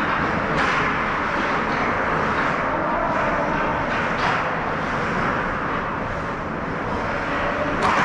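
Ice hockey rink sound during play: a steady rushing noise with a few short, sharp scrapes or knocks scattered through it.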